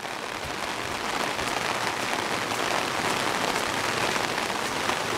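Heavy rain falling steadily, mixed with the rush of muddy runoff water pouring down a concrete drainage ditch.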